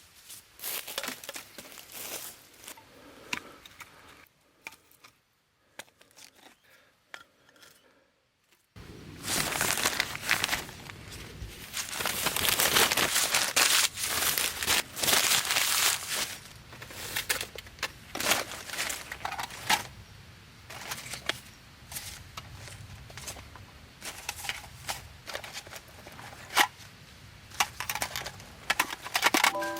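Crinkling and rustling of material being handled, broken by sharp clicks and taps. It is faint at first, then louder and busier from about a third of the way in.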